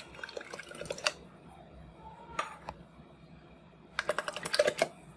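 Thick cream being tipped out of a small metal tin into a plastic chopper bowl: the tin knocks against the bowl in two bursts of rapid clicks, one at the start and one about four seconds in, with soft wet plops as the cream drops.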